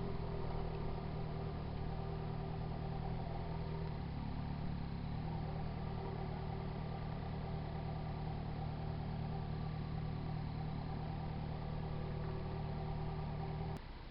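Yamaha XJ6 motorcycle's inline-four engine idling steadily, then cutting off suddenly near the end as it is switched off.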